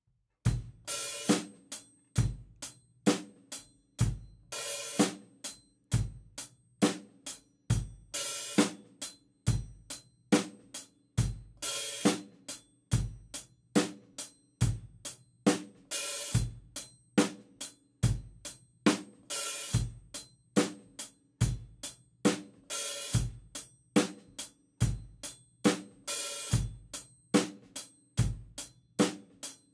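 Drum kit playing a slow beat: closed hi-hat eighth notes with bass drum and snare. About once a bar the hi-hat is opened on an upbeat and rings with a longer, brighter wash (a hi-hat bark), then closes on the following beat. The open note moves from the and of one to the and of two and then the and of three.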